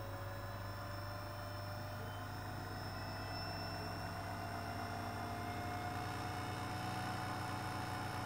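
Small 24 V DC scooter motor run up to full power on a speed controller, winding up from about 2,700 to 3,700 rpm: a slowly rising whine over a steady hum. It is noisier than it should be because the tachometer magnet on its shaft unbalances it.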